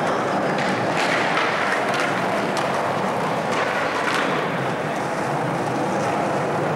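Skateboard wheels rolling on a concrete floor, a steady grinding rumble, with a few sharp clacks of the board between about one and four seconds in.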